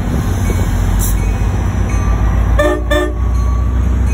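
New Jersey Transit diesel locomotive approaching with a steady low engine rumble. Its horn sounds two short blasts in quick succession a little over halfway through.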